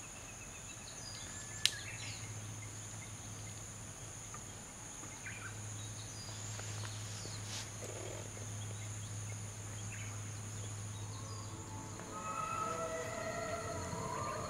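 Outdoor dusk ambience: a steady high-pitched insect buzz, with scattered short bird chirps and a single sharp click about two seconds in. Music fades in near the end.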